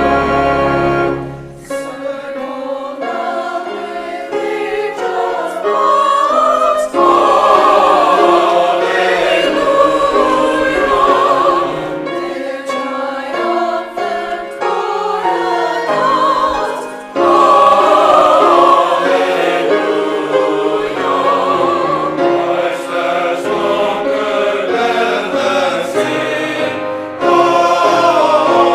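Church choir singing a hymn anthem in parts with piano accompaniment. It drops back softly near the start and swells to full, loud passages a quarter and halfway through.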